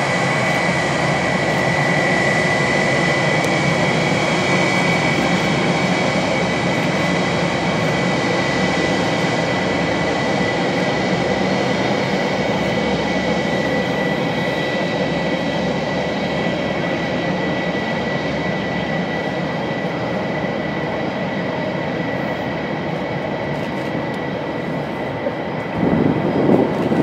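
Airbus A319's IAE V2500 turbofan engines running at taxi power: a steady rushing noise with a high whine, slowly fading.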